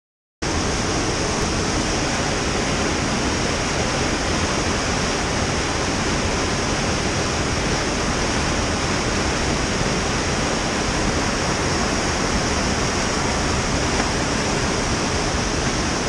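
Whitewater rapids on a steep boulder creek: a steady rush of water that cuts in suddenly about half a second in and holds even throughout.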